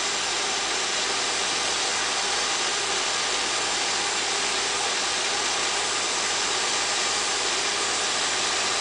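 Small electric motor of a fischertechnik monorail carriage spinning its propeller: a steady whir with a rush of air, even in level throughout.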